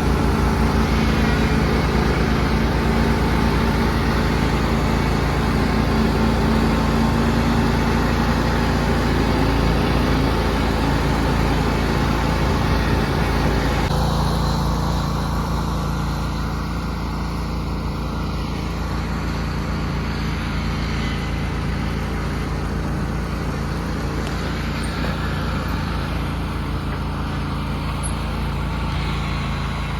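An engine running steadily, close by; about halfway through its sound changes and drops a little.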